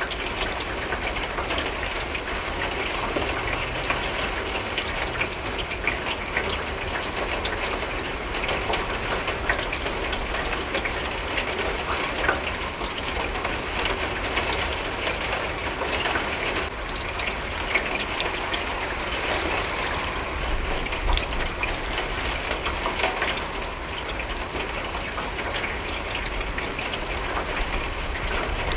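Steady rain falling against a window, a dense even hiss with many small drop ticks scattered through it.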